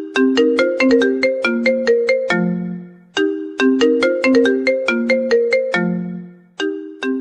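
Mobile phone ringtone melody: a tune of short struck notes, the same phrase starting over about every three seconds with a brief break between repeats.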